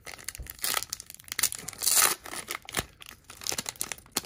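Wrapper of an Upper Deck hockey card pack being torn open and crinkled: a run of sharp crackles and rips, loudest about two seconds in.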